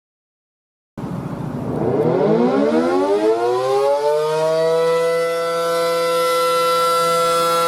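Outdoor tornado warning siren winding up from a standstill: it starts about a second in, rises in pitch over about three seconds, then holds a steady tone.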